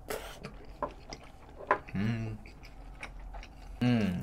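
Close-miked eating of tteokbokki: wet mouth clicks and chewing, with a short hummed "mmm" of enjoyment about two seconds in and again near the end.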